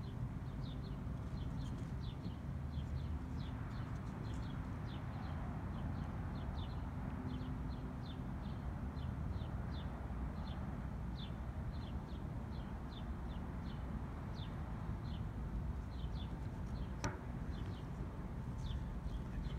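Small birds chirping, short high chirps repeating two or three times a second, over a steady low rumble. A single sharp click sounds near the end.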